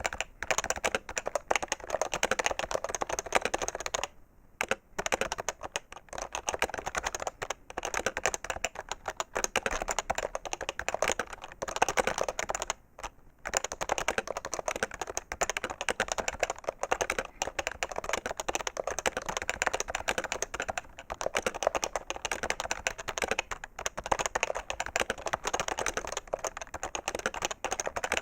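Fast, continuous typing on a PFU HHKB Professional 2 keyboard, its Topre electro-capacitive keys clacking densely, with two brief pauses about four and thirteen seconds in.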